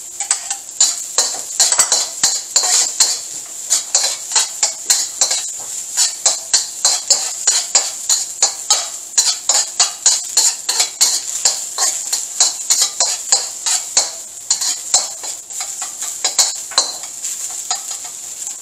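A metal slotted spatula scraping and knocking against a steel wok, about two to three strokes a second, as it stirs diced onion and garlic frying in oil. A steady sizzle of the frying runs underneath.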